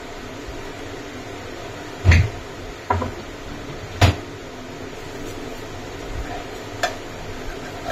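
A few short, scattered knocks of kitchen utensils against a bowl while cake batter is being mixed, over steady background noise.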